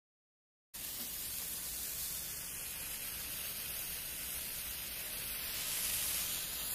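Spark-fountain firework burning: a steady, high hiss of spraying sparks that starts suddenly about a second in, after silence.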